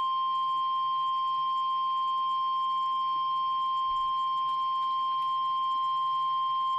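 NOAA Weather Radio warning alarm tone: one steady, loud, high-pitched tone near 1 kHz, held unbroken. It is the alert signal that comes before a broadcast severe thunderstorm warning.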